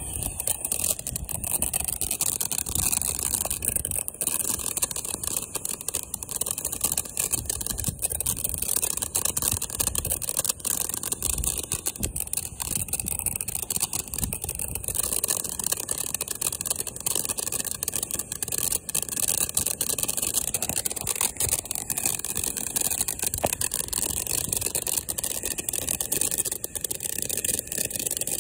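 Ground fountain fireworks spraying sparks: a steady, high hiss peppered with dense crackling.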